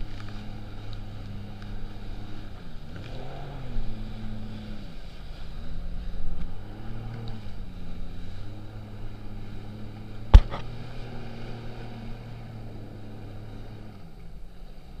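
Jet ski engine running under way, its note dipping and rising twice as the throttle is eased and opened again, over a rush of water and wind. A single sharp knock about ten seconds in, and the engine note drops away near the end.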